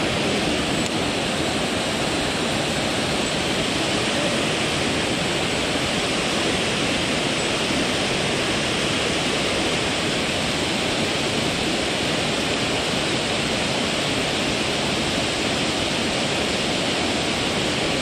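Small mountain-stream waterfall pouring into a plunge pool close by: a steady, even rush of falling water.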